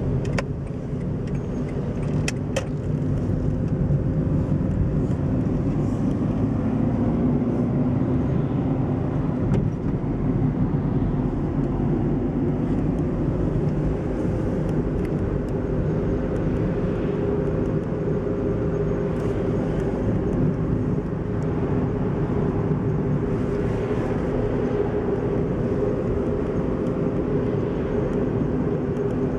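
Car engine and tyre noise heard from inside the cabin while driving, a steady hum and rumble.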